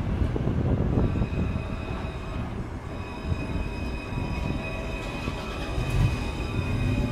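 C-Class tram (Alstom Citadis) passing close by: a low rumble of wheels on the rails, with a steady high-pitched whine coming in about a second in.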